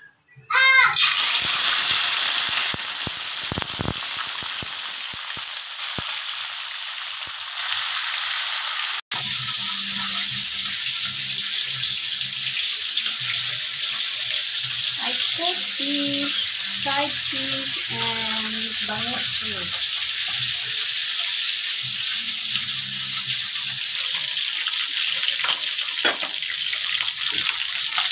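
Small tamban sardines frying in hot oil in a wok: a loud, steady sizzle that starts suddenly about a second in.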